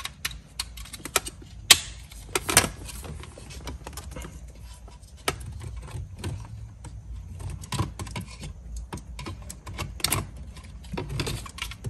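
Plastic SMG shifter trim plate of a BMW E46 M3 being handled and fitted: irregular clicks and taps of plastic on plastic, with a few sharper clicks.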